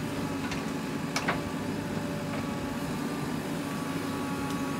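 Diesel engine of a JCB 3DX backhoe loader running steadily under load as it digs and swings a bucket of soil. A couple of short knocks sound in the first second or so.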